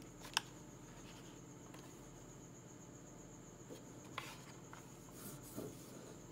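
Faint handling of a plastic clothes iron turned over in the hands: a sharp click about half a second in, a softer click about four seconds in, and light rubbing of hands on the plastic body.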